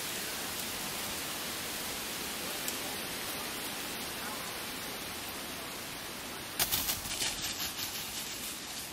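Steady rushing of a river, an even hiss that fades slightly; about two-thirds of the way through comes a short spell of rapid crackling clicks.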